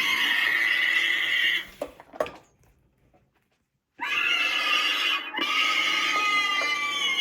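Twitching Banshee animatronic's recorded scream played through its speaker: a long high scream, a couple of clicks and about a second and a half of silence, then a second scream whose pitch sags slightly toward the end.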